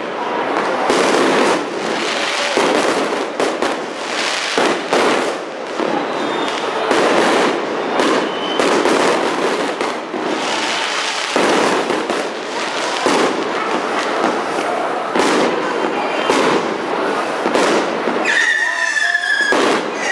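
Fireworks display: a continuous, irregular barrage of bangs and crackling bursts. A high whistle comes in near the end.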